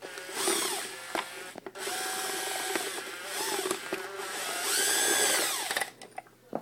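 Makita cordless drill with a screwdriver bit backing out the cover screws, running in several bursts whose pitch rises and falls as the trigger is feathered, then stopping about six seconds in.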